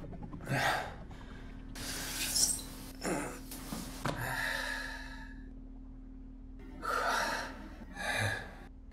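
A man breathing hard through his open mouth as he catches his breath after exertion: about six gasping breaths, with a longer sighing breath about four seconds in.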